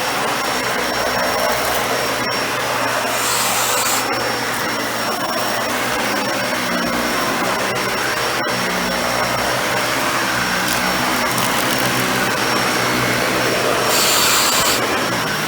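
Dyson Ball Animal 2 upright vacuum running steadily, with a thin high whine over the motor and airflow noise. Brief hissier surges come about three seconds in and again near the end.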